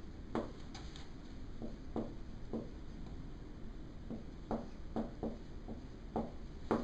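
Marker on a whiteboard: short, irregular taps and strokes as numbers and brackets are written.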